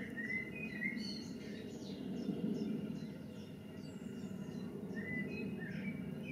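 Songbirds chirping and singing in short high notes, busiest near the start and again about five seconds in, over a steady low background rumble.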